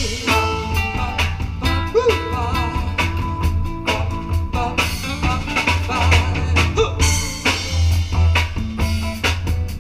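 Live band playing an original song: a drum kit keeping a steady beat over bass and guitar.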